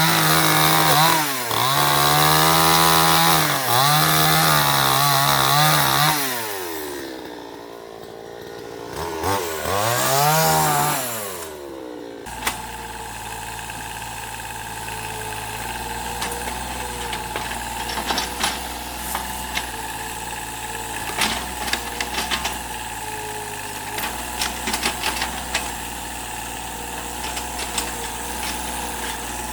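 Chainsaw running at high revs, its pitch dipping again and again as it bites into wood. It eases off briefly, revs up and down again, then gives way abruptly about twelve seconds in to the steady low running of an excavator's engine, with scattered knocks and clanks.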